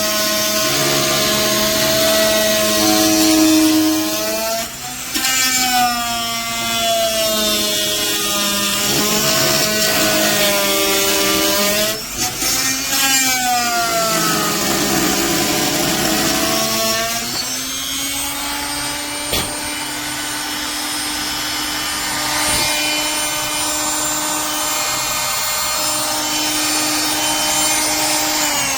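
WORKPRO 3.0 amp corded oscillating multi-tool sawing wood. For about the first 17 s its whine dips and rises in pitch as the blade bites and frees. Through the rest it runs at a steady, even pitch.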